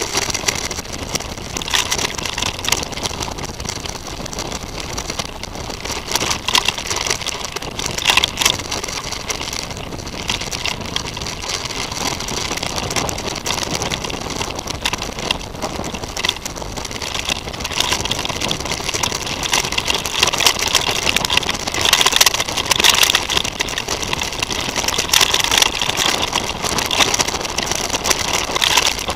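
Titus FTM mountain bike ridden fast over a rough dirt trail, heard through a camera mounted on the bike: a steady rumble of tyre and wind noise with frequent knocks and rattles as the bike bounces over bumps.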